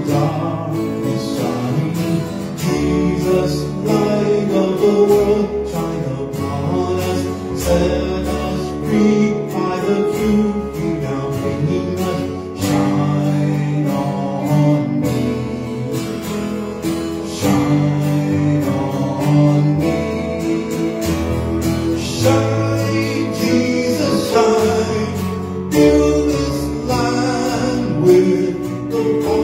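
A worship song sung live by a man's voice with strummed acoustic guitar, with piano accompaniment.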